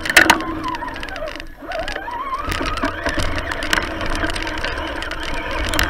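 Traxxas Summit RC truck's electric motor and gears whining as it drives, the pitch dipping and rising again with the throttle. Leaves and branches scrape and knock against the truck and its onboard camera in many sharp clicks.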